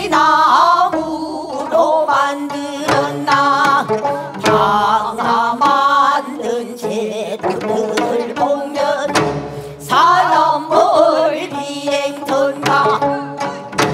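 Korean traditional singing in the pansori style: a voice rising and falling in long bends over instrumental accompaniment, with a low drum stroke every few seconds.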